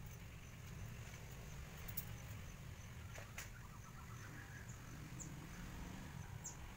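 Quiet garden ambience: a faint steady insect drone over a low rumble, with a few small sharp clicks about two and three seconds in as wire is bent around the adenium's branches, and a couple of brief high chirps near the end.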